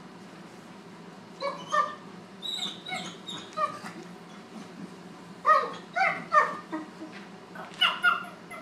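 Small white lapdog of Shih Tzu–Maltese type barking: short, high-pitched yappy barks in bursts, starting about a second and a half in, with the loudest cluster around the middle and a last pair near the end.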